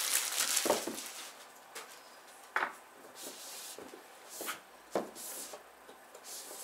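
Cardboard headphone box handled on a wooden table: a few light knocks of the box on the table and short sliding rubs as the printed sleeve is worked off the inner box. A soft plastic crinkle fades in the first second.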